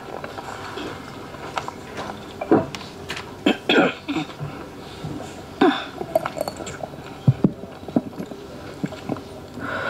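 A lectern microphone being handled and adjusted: scattered knocks and clicks, with a few brief voice sounds such as coughs.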